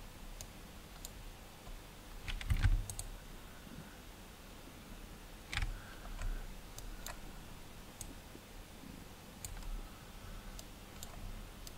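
Sparse clicks of a computer mouse and keyboard, with a quick cluster of several clicks about two and a half seconds in and single clicks spread through the rest.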